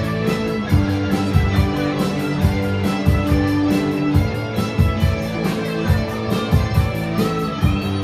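Live rock band playing an instrumental passage: electric guitars, bass, keyboard and drum kit, with the cymbals keeping a steady beat of about four ticks a second.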